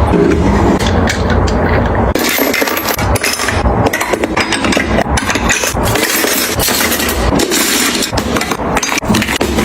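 Busy clatter of kitchen items being handled and set down: a dense run of knocks and clinks that changes abruptly about two seconds in, when a low rumble drops away.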